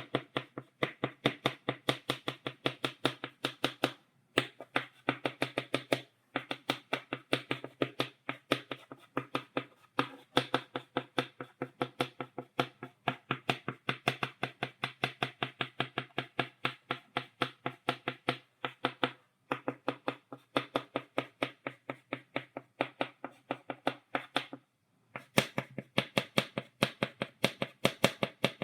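Chalk tapped against a blackboard, stippling dots: rapid sharp taps, several a second, with a few short pauses.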